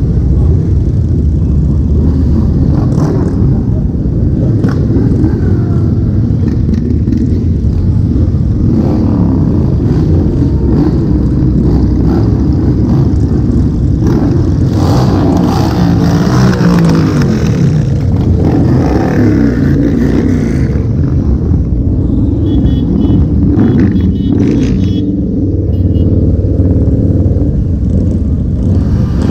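A procession of V-twin cruiser and touring motorcycles rolling past one after another, engines rumbling loudly, with revs rising and falling as bikes pass in the middle stretch.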